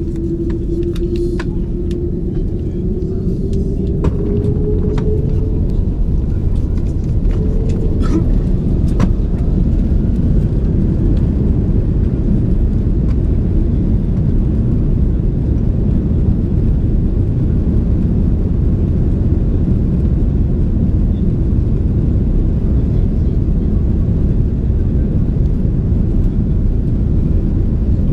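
Airbus A330-300 jet engines spooling up for takeoff, heard inside the cabin: a whine rising slowly in pitch over the first five seconds or so, then a steady heavy roar and rumble as the airliner accelerates down the runway. A few clicks and knocks come in the first nine seconds.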